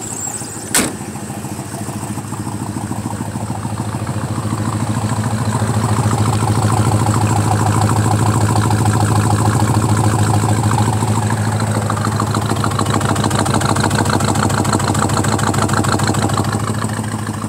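1951 Ford Custom convertible street rod's engine idling steadily, still early in its warm-up after a cold start, heard at its chrome exhaust tip. It grows louder a few seconds in and eases near the end. A single sharp click about a second in.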